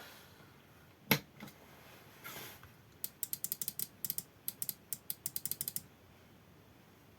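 Quick runs of small sharp clicks from the Moulinex hand blender's controls being worked, with no motor sound: the blender still does not start.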